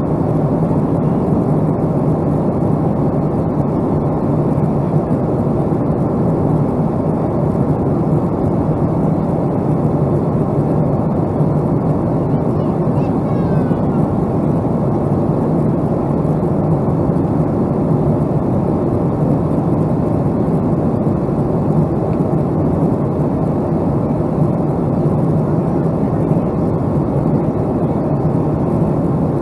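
Steady jet-engine and airflow roar heard inside a Boeing 757-200's cabin, holding an even level with a deep hum underneath.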